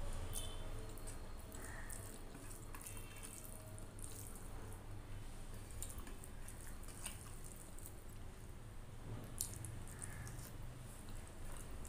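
Wet eating sounds from eating rice and curry by hand: fingers squishing and mixing the rice on a steel plate, and chewing with lip smacks, as scattered small wet clicks.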